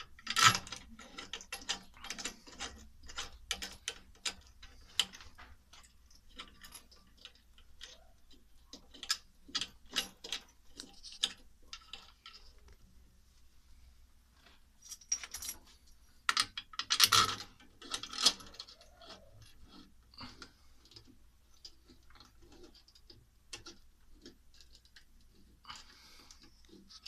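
Irregular metallic clicks, clinks and knocks of tools and parts being handled while working on a front-loading washing machine, with a louder cluster of clanks about two-thirds of the way through.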